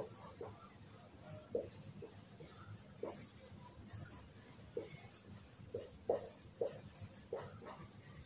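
Felt-tip marker writing on a whiteboard: a run of short, irregular squeaks and scratchy strokes as letters are written.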